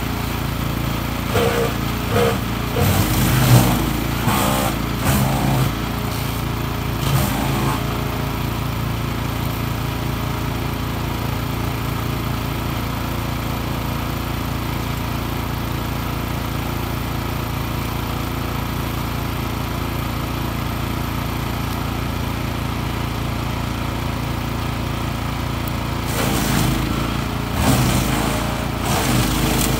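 Wood chipper's 14 hp petrol engine running steadily at speed. For the first several seconds and again near the end, branches are being fed through and chipped, in louder, uneven bursts over the engine; in between it runs unloaded and even.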